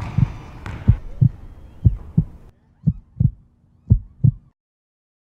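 Heartbeat sound effect: paired low thumps, lub-dub, about once a second, over background noise that fades away. It cuts off suddenly after about four and a half seconds.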